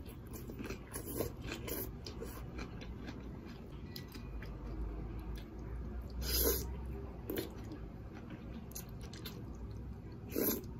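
A person slurping and chewing liang pi, wide cold wheat noodles, eaten with chopsticks. A few short slurps stand out, the loudest about six seconds in and near the end, with quieter chewing between.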